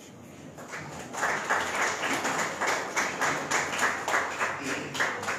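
A small group applauding, hand claps starting faintly about half a second in and growing to a steady clatter of claps from about a second in.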